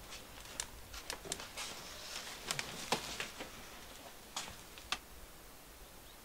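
A hand handling a plastic bag and small objects on a cluttered desk: crinkling plastic and scattered light clicks and knocks, busiest in the first half, with a last couple of knocks about five seconds in.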